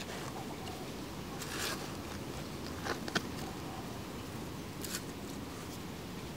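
Small hand trowel digging into loose soil: a few short gritty scrapes and crunches, one about a second and a half in, two sharp ones near three seconds and another near five seconds, over a steady low background noise.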